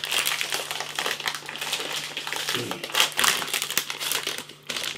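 Crinkly plastic snack packet of pork scratchings being handled and opened: a dense crackling rustle with many sharp crackles throughout.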